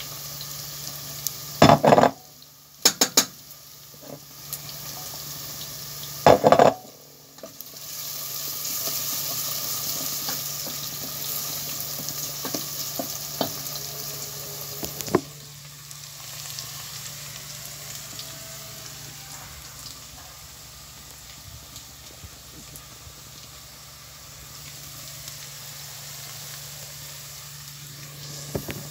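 Food sizzling as it cooks on the stove, a steady hiss that is louder from about eight to fifteen seconds in and softer after. A few loud sharp knocks and clatters come near the start, at about two, three and six and a half seconds in, over a steady low hum.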